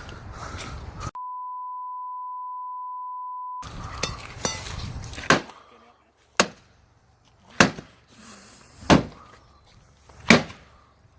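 A steady censor bleep for about two and a half seconds, then hammer blows on a small metal safe: about five sharp strikes, each a little over a second apart.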